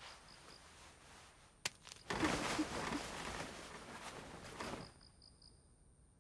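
Bedclothes rustling for about three seconds as a person shifts and sits up on a bed, after a single soft click. Faint cricket chirps repeat quickly at the start and again near the end.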